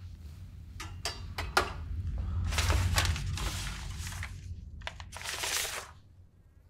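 Objects being handled and pushed around on a wooden shelf. A few quick knocks come first, then longer scraping and rustling as things are swept aside, over a low rumble.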